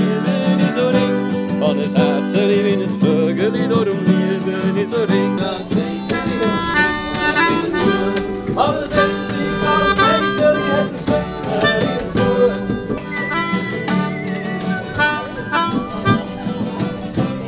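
An acoustic guitar and a melodica playing a tune together, the melodica holding sustained notes over the guitar.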